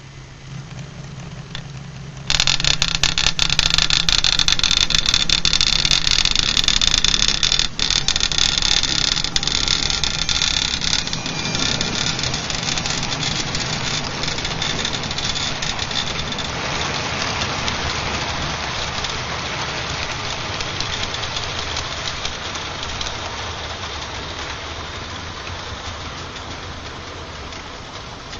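Hornby OO gauge GWR King Class model locomotive running past with its train: a motor hum, then a sudden loud rise about two seconds in as it passes, with a rapid rattle and clicking of wheels on the track. The sound fades slowly as the train moves away. The owner puts the rattle down to the loose DCC decoder vibrating inside the locomotive.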